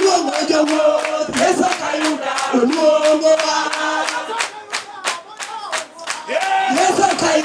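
A group of women singing together in unison to steady hand clapping. About four and a half seconds in, the singing drops out for a second or two while the clapping carries on, then the voices come back in.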